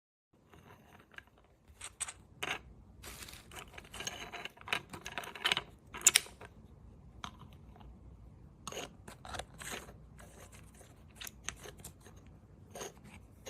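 Mechanical keyboard keycaps being handled, with irregular clicks of hard plastic and short scraping. The loudest click comes about six seconds in.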